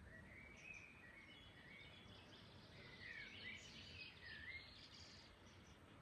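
Faint birdsong: a string of short chirps and warbled phrases from songbirds, busiest in the middle, over a low background noise.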